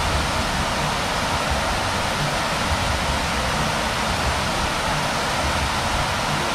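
Fountain display of rows of tall vertical water jets splashing down into a pond: a steady rushing of falling water.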